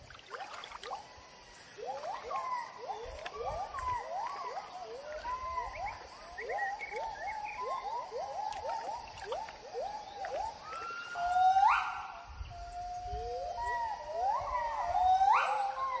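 Gibbons singing. A run of short whooping notes, about two a second, builds into long whoops that climb steeply in pitch, twice near the end.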